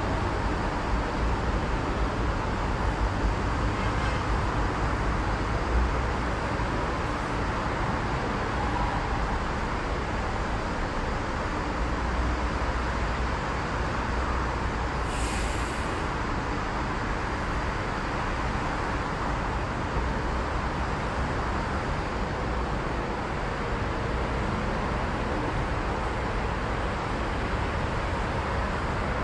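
Steady low rumble of city road traffic, with one short high hiss about halfway through.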